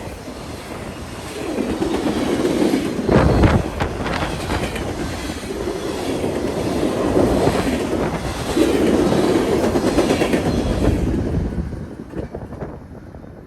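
A train passing, its wheels clacking over the rail joints in a noisy roar that surges and ebbs, then dies away about twelve seconds in.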